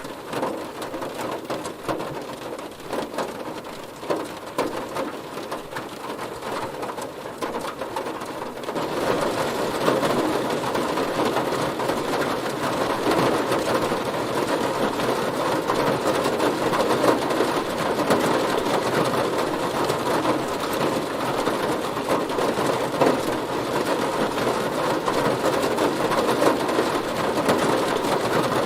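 Heavy rain falling on a car, a dense, steady patter of countless drops on the body, growing louder about a third of the way in.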